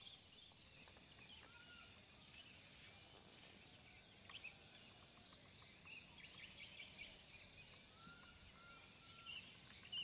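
Faint birdsong over near-silent morning air: scattered short chirps and calls, with a brief level whistle about a second and a half in and another near the end.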